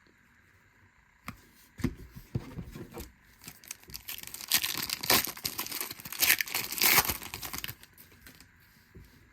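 A foil baseball card pack wrapper being torn open and crinkled by hand, a few sharp clicks of handling first, then about four seconds of dense crackling tearing that stops near the end.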